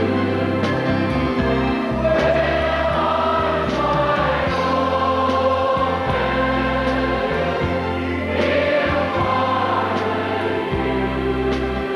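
Church choir and congregation singing a gospel hymn together over sustained low instrumental notes.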